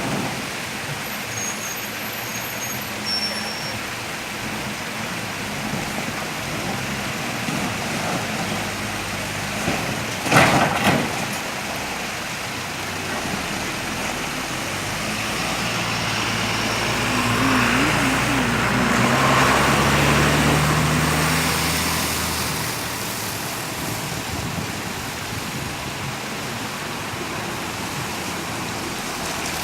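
Motor vehicle traffic with a steady road noise. A brief cluster of sharp knocks comes about ten seconds in. Louder engine sound builds and fades between about sixteen and twenty-two seconds in, as a heavier vehicle passes.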